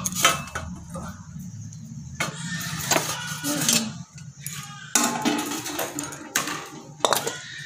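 Stainless-steel pot lids and bowls clinking now and then as they are lifted and moved, over soft background music.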